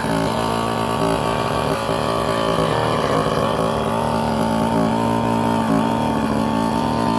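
Gasoline-engine hybrid multirotor drone in flight: its engine and propellers running steadily, a sustained sound of several pitches held throughout.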